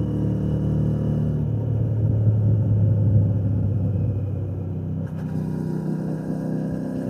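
Royal Enfield Shotgun 650's parallel-twin engine and exhaust running steadily while riding, with wind noise. The engine note changes about five seconds in.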